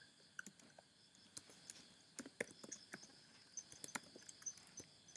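Typing on a computer keyboard: a string of faint, irregular key clicks as a word is typed.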